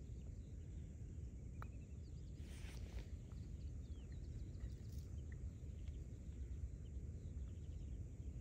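Outdoor ambience: a steady low rumble of wind on the microphone, with faint bird chirps and a brief rustle about two and a half seconds in.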